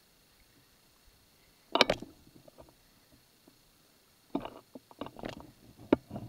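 Knocks and clatter on a fishing boat: one loud, sharp knock about two seconds in, then a run of smaller knocks and rattles from a little past four seconds.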